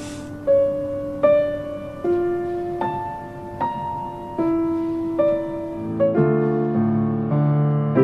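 Solo piano music: a slow melody of single held notes, joined about six seconds in by fuller chords lower down.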